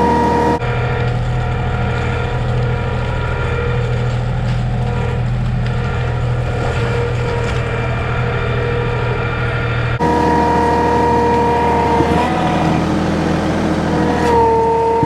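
John Deere 2032R compact tractor's diesel engine running steadily under load while pulling on a chained tree, with a steady whine over the engine note. The sound changes abruptly twice, about half a second in and again about ten seconds in.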